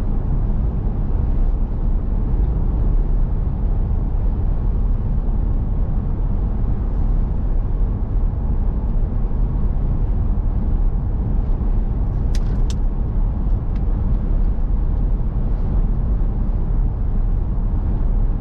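Steady road and engine noise of a car driving at speed, heard from inside the cabin. Two brief sharp clicks come about twelve seconds in.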